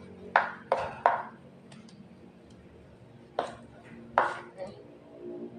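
Fish-meatball dough being slapped and worked by hand in an aluminium bowl: about six sharp, wet slaps and knocks, three in quick succession near the start and three more after a pause.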